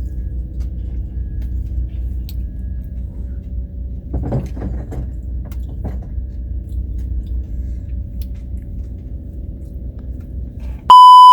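Diesel truck engine idling with a steady low rumble. Near the end a loud electronic beep starts abruptly.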